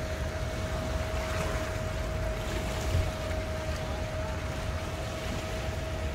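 Boat engines running steadily: a low rumble with a constant, unchanging hum over it.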